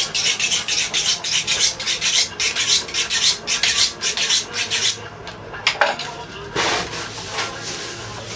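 Filleting knife being honed on a sharpening steel: a quick run of metal-on-metal scraping strokes, about four a second, that stops about five seconds in, followed by a few softer scrapes.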